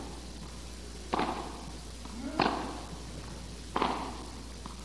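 Tennis ball struck back and forth in a baseline rally: three sharp racket hits about 1.3 seconds apart, each echoing briefly in the indoor arena.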